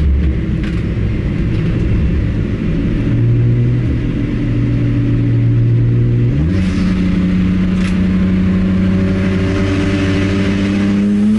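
BMW 335i's twin-turbo N54 inline-six engine under way during a race, its pitch stepping up twice and then climbing slowly, with a drop right at the end.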